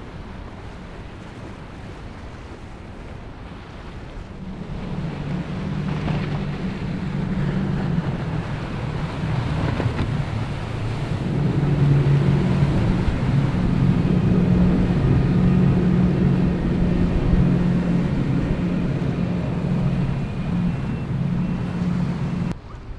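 Motorboat engines passing close, a steady low drone that rises in from about four seconds in and stays loud until it cuts off suddenly near the end, over the rush of wind and waves.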